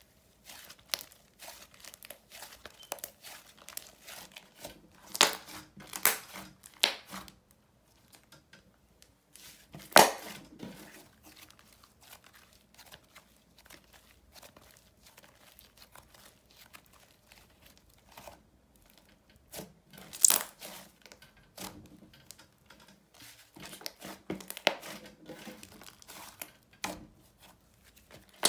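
Thick slime being squished, folded and stretched by hand: a run of sticky clicks and crackles, with several louder pops, the loudest about ten and twenty seconds in.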